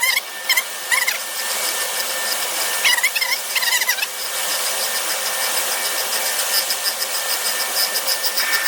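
Grinding wheel of a bench grinder running while a drill bit held in a sliding jig is fed against it, grinding the tip to a 118° point. A steady high whine with a hiss of grinding, wavering squeals in the first few seconds, then an even fast pulsing.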